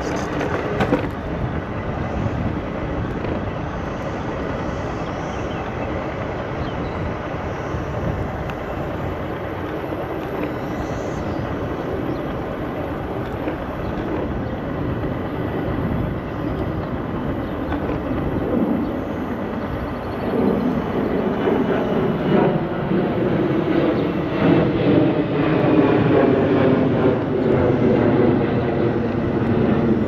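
Steady rush of tyres and wind while riding a Segway Ninebot Max G2 electric scooter along a trail. A jet airplane passes overhead, its rumble growing louder from about two-thirds of the way through.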